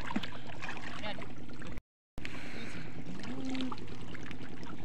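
Steady background noise with faint, distant voices, broken by a brief total silence about two seconds in.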